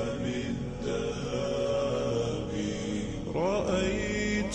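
Background Arabic nasheed: a chanted devotional vocal melody of held notes, with the voice sliding upward in pitch about three and a half seconds in.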